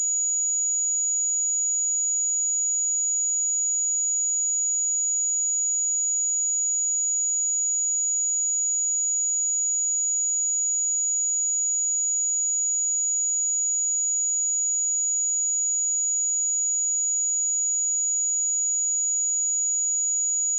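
A pure 6831 Hz sine-wave test tone, a single steady high-pitched whistle held at constant level.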